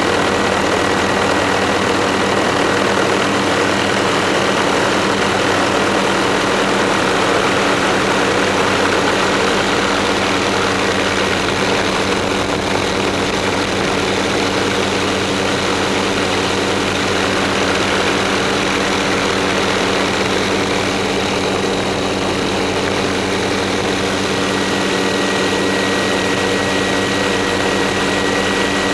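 Helicopter engine and rotor noise heard from inside the cabin: a steady drone with a thin high whine over it.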